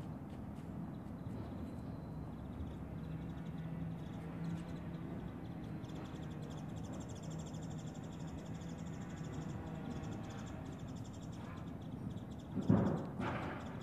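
Distant house-construction site background with a steady low hum, then two loud hammer blows on the timber framing, a carpenter's hammer striking wood, near the end.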